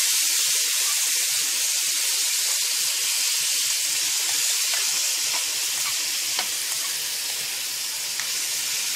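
Pieces of liver frying in hot oil in a metal pan: a steady sizzling hiss with a few small pops in the second half.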